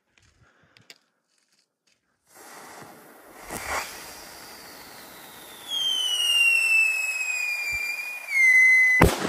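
Ground screamer firework: a fuse hisses, a pop follows, then a loud whistle slides slowly down in pitch for about three seconds and ends in a sharp bang.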